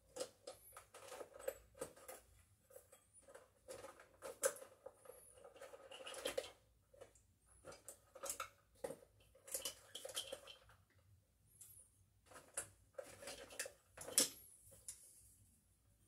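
Small metal hand tools clicking and clinking as they are handled and taken from a tool pouch: irregular clusters of sharp clicks and rattles with short pauses, the loudest near the end.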